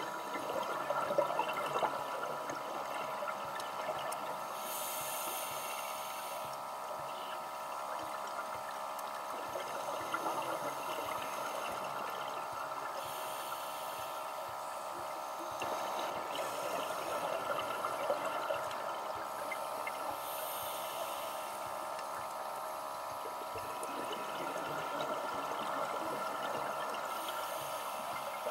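Scuba diver breathing through a regulator underwater, heard through a camera housing: a steady muffled hiss broken every several seconds by a hissing burst of exhaled bubbles, about five times.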